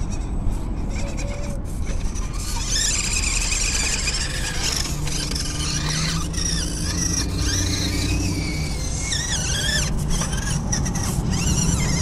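Small electric motor and drivetrain of a 1/24-scale RC rock crawler whining at a high pitch, rising and falling with the throttle from about two seconds in, over a low steady rumble.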